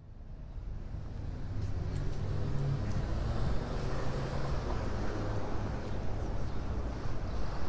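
Outdoor ambience: a low, steady traffic rumble that fades in over the first two seconds.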